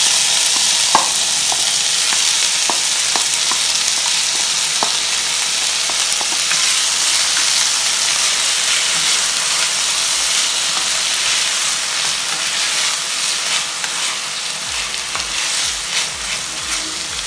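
Chopped tomatoes, sweet peppers, onion and scallion sizzling in hot vegetable oil in a pot, stirred with a wooden spoon. There are a few light taps early on and more small clicks from the stirring near the end. The sizzle slowly dies down as the vegetables cool the oil.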